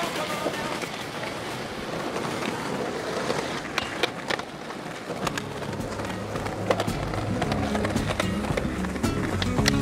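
Skateboard wheels rolling on pavement, with a few sharp clacks of the boards. Background music plays, and its bass line comes in about five seconds in.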